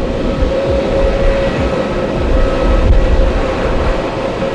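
Jet airliner engines running: a steady whine over a broad rush, with gusty low rumble from wind buffeting the microphone.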